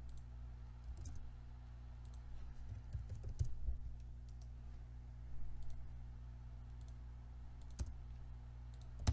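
Scattered computer keyboard keystrokes and mouse clicks, a few at a time, over a steady low hum.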